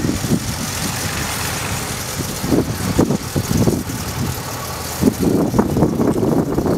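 Simplex diesel locomotive's engine running as it draws its train of open carriages along the narrow-gauge track, with irregular knocks and rattles that come thicker from about five seconds in.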